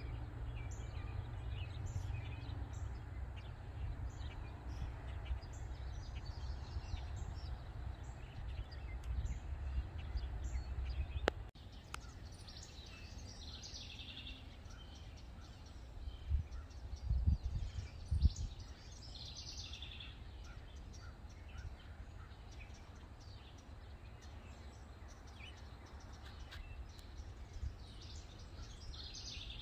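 Songbirds chirping over a low rumble that cuts off with a click about eleven seconds in, then a few low thumps.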